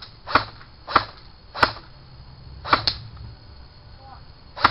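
Airsoft gunfire: a slow, irregular series of sharp cracks, about six, with two in quick succession near three seconds in.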